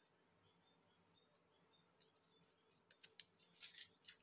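Near silence, broken by a few faint, sharp clicks and a short, soft rustle near the end.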